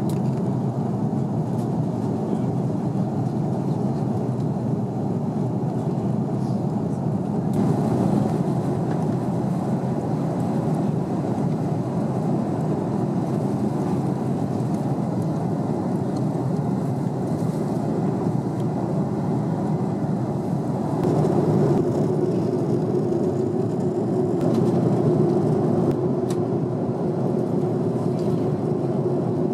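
Steady roar inside an Airbus A330's cabin in flight, engine and airflow noise heard at a window seat. The sound shifts slightly twice, about 8 and 21 seconds in, and a steady hum joins from about 21 seconds.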